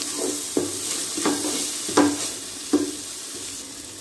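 A wooden spatula stirs and scrapes a frying onion-and-spice masala with grated dried coconut in an aluminium pot, over a steady gentle sizzle. There are several scrapes against the pot in the first three seconds, then mostly the sizzle.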